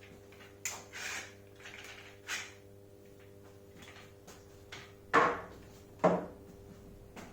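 Handling noises of a wooden dining chair frame and its padded back panel being positioned for clamping: light scuffs and taps, then two sharp wooden knocks about a second apart.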